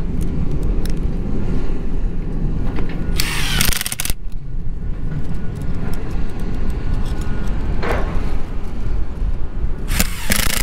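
Yellow DeWalt cordless drill running in short bursts, driving screws through a plastic junction box into plywood, about three seconds in and again near the end, over a steady low rumble.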